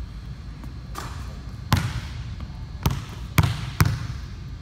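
Basketball bouncing on a hardwood gym floor: four sharp bounces at uneven spacing in the second half, each with a short echo.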